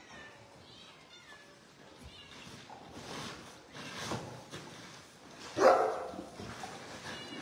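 Cats meowing while dry cat food is scooped with a metal cup from a plastic barrel, rustling and rattling. A sudden loud noise comes about five and a half seconds in.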